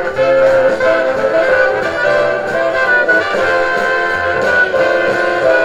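Jazzy brass-band music playing loudly through a small speaker driven by a home-built 48 V vacuum-tube output-transformerless (OTL) amplifier, its volume turned well up.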